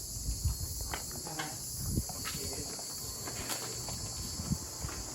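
Steady high-pitched insect chorus in summer hill country, with a few scattered light knocks and clicks.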